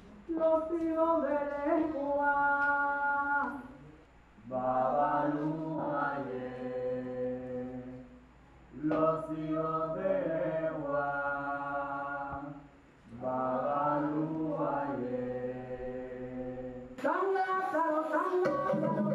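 Voices singing a chant without instruments, in four long phrases of about four seconds each with short breaks between them. About two seconds before the end it cuts to louder music with instruments.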